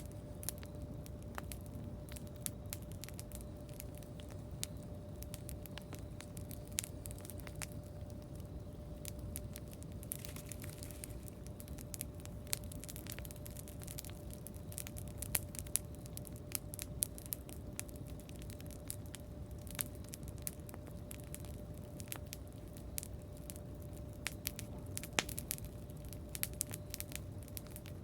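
Wood campfire crackling, with irregular sharp pops and snaps, more frequent in the second half, over a low steady rush. A faint steady hum runs underneath.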